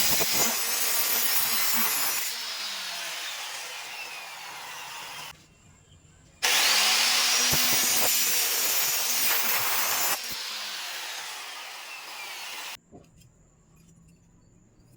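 Electric drill running under load in two long bursts of about five and six seconds, with a short pause between. Each burst starts with the motor spinning up and drops in loudness partway through.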